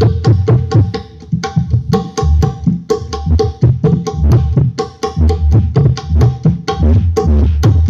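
Percussion-heavy music with a fast, busy drum pattern and heavy bass, played loud through a two-way PA sound system under sound check.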